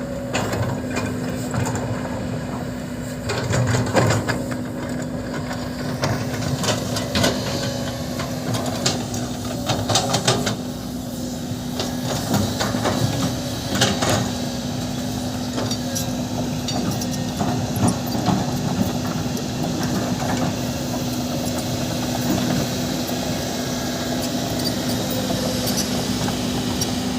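A heavy diesel construction machine runs steadily with a constant hum, while repeated knocks and clanks of working equipment come and go.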